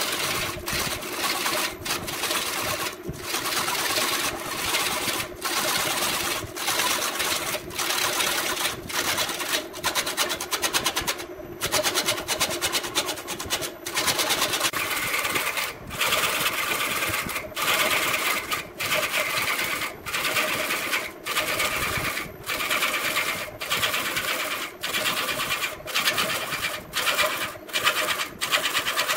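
Homemade wood lathe spinning a large wooden blank while a hand-held turning tool cuts it, giving a rough, rapid scraping chatter. The chatter breaks off briefly about once a second.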